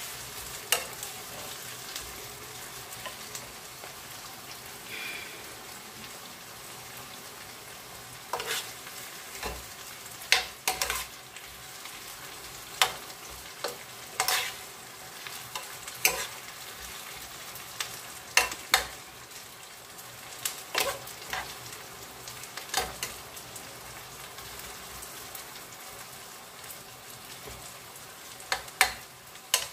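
Sliced onions, tomato and bell peppers sizzling steadily as they fry in a pan, with sharp clinks of a metal spoon every few seconds as it stirs.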